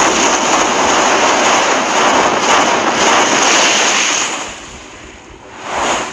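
Logo-intro whoosh sound effect: a loud, steady rushing noise that fades away about four seconds in, then a second, shorter swell near the end.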